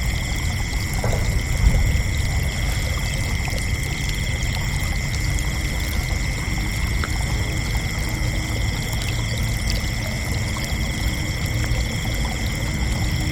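A chorus of crickets trilling steadily and without pause over a low, even rumbling noise.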